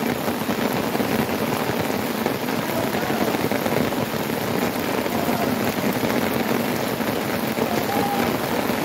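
Heavy rain pouring steadily onto floodwater and a wooden boat.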